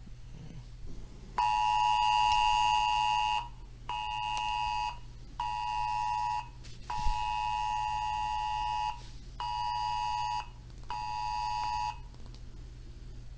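Wireless Emergency Alert (WEA) attention signal: a harsh two-tone beep (853 and 960 Hz) in its set rhythm of one two-second tone followed by two one-second tones, the whole pattern played twice.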